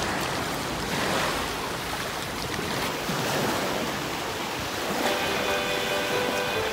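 Small sea waves washing onto a pebble shore, a steady rushing noise. Background music with held tones comes in about five seconds in.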